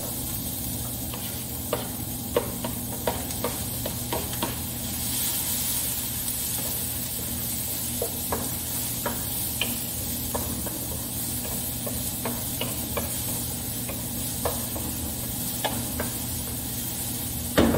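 Food frying in oil in a pan: a steady sizzle that grows louder about five seconds in, with irregular sharp clicks of a utensil knocking against the pan as it is stirred.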